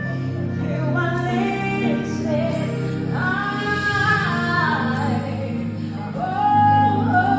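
A woman singing a gospel worship song in long held, sliding notes over steady instrumental accompaniment.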